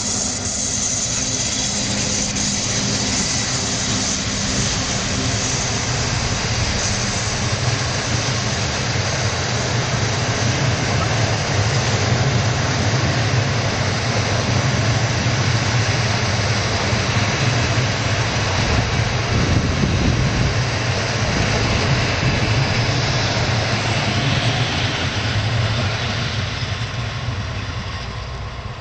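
Passenger train hauled by an electric locomotive passing close by: the steady rolling noise of wheels on rails with a low hum as the coaches go past, easing off over the last few seconds as the last coach moves away.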